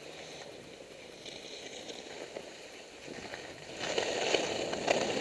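Skis sliding and scraping over snow, a steady hiss with small crackles that gets clearly louder about three and a half seconds in as the edges bite harder.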